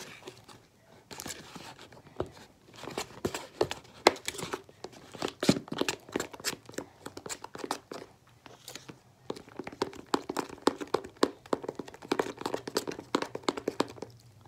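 Fluffy slime mixture of glue, shaving cream and paint being stirred: a busy run of irregular wet, crackling squishes, pausing briefly about a second in and again around the middle.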